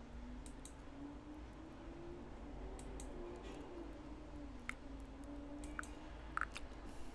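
Scattered soft clicks of a computer mouse, a dozen or so at irregular intervals, over a faint steady low hum.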